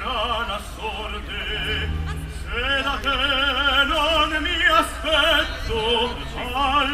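Operatic singing in Italian with a wide, steady vibrato, heard through a concert sound system during a sound check, over a low steady hum.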